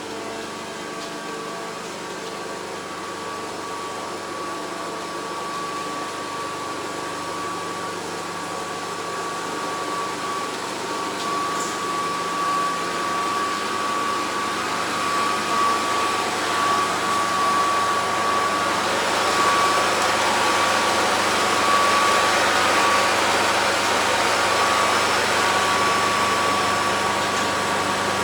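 Gas pipeline reconstruction machinery running continuously: a steady mechanical drone with a high, constant whine, growing louder and hissier over the second half.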